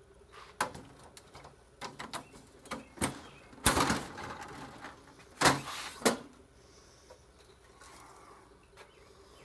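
Scrap circuit boards and parts being handled on a work surface: a run of clicks and clattering knocks, with two louder knocks about three and a half and five and a half seconds in.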